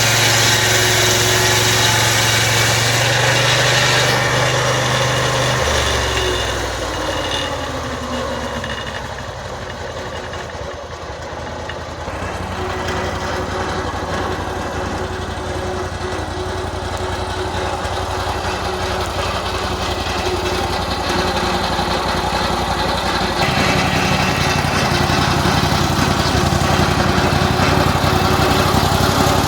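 Engine of a band sawmill running steadily. Its note drops about six seconds in and slides lower, then builds back up from about twelve seconds in and steps up again near the end.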